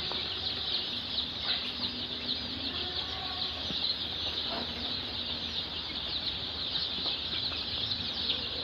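A crowd of chickens' chicks peeping constantly, many short high falling cheeps overlapping, with now and then a lower cluck.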